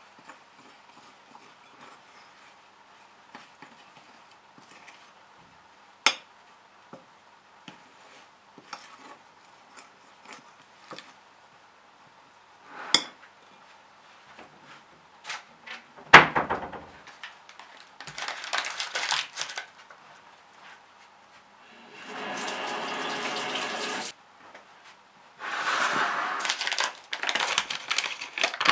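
A metal spoon stirring and clinking against a glass mixing bowl, with sharp clinks about six and thirteen seconds in and a heavy knock a little after sixteen seconds. Later come bursts of rustling, a steady rushing noise for about two seconds, and crinkling of a paper flour bag near the end.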